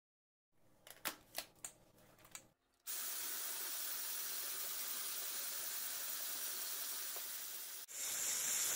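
A few light clicks and scrapes of a spatula clearing caramel from a pan over a glass bowl, then from about three seconds in an electric hand mixer with a whisk attachment runs steadily, beating a thin batter in the glass bowl. Near the end it briefly dips and comes back louder and hissier.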